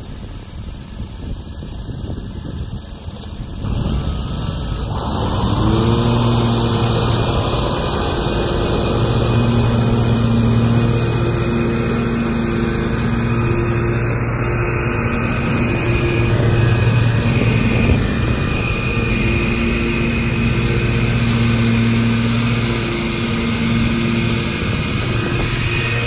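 Exmark Turf Tracer 48-inch walk-behind mower's engine running as it mows toward the listener. It gets louder about four seconds in, then runs at a steady pitch.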